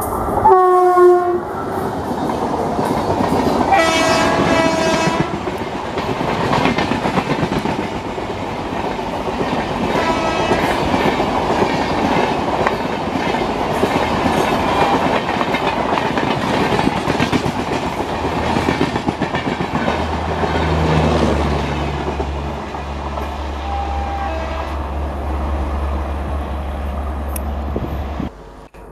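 Electric locomotive horn sounding twice in the first five seconds as a WAP-1 hauls an express past at speed, with a shorter horn note about ten seconds in. The coaches then rumble past with wheels clattering over the rail joints, and a low steady hum takes over in the last several seconds.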